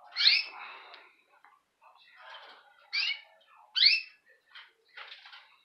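Caged canary giving short rising calls: one at the start, then two close together about three seconds in.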